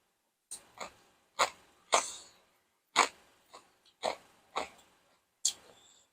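A person chewing crisp food close to the microphone: a run of about nine sharp, crackling crunches, roughly two a second.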